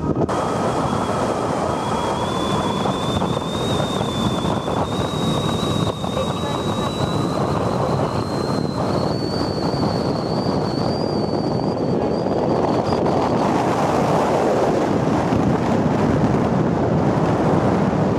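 Wind buffeting the microphone over rushing water from a patrol ship under way at sea. A thin whine slowly rises in pitch through most of the clip and fades out about three-quarters of the way in.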